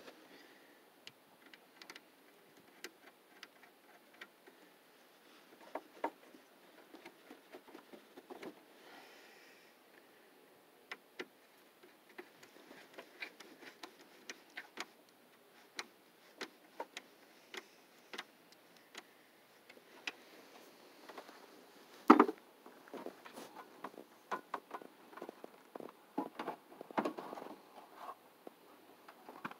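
Scattered small clicks and knocks from hand work on a radiator: a small coolant hose being pushed onto its neck and its worm-drive hose clamp being tightened with a screwdriver. One sharp knock about 22 seconds in, then a burst of small knocks near the end.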